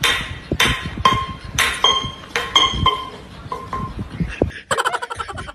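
Repeated sharp metallic clinks, about two a second, each with a brief ringing tone, stopping about four and a half seconds in. A man's short chuckle follows near the end.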